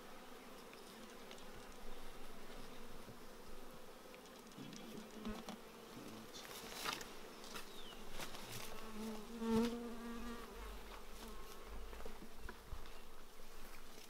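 Honeybees buzzing around the hive: a steady low hum, with one bee flying close past for a moment, louder, a little after halfway. A few faint clicks are heard.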